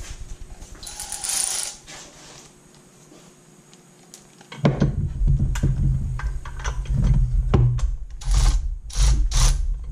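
A hand ratchet wrench clicking in short back-and-forth strokes on a bolt in a jet ski's engine bay, mixed with knocks and rattles of the tool and hands. The first half is quieter, with a few small tool clicks; the ratcheting starts about halfway through and comes in quick strokes near the end.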